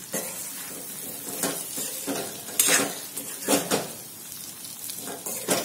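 Metal spatula scraping and stirring in a steel kadai, turning stuffed bitter gourds and spice masala in hot oil, over a light sizzle. The scrapes come about once a second, the loudest in the second half.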